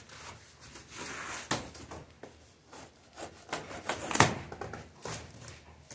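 Cardboard packaging of a washing machine being pulled and handled: scattered scrapes, rustles and knocks, with one sharp knock about four seconds in.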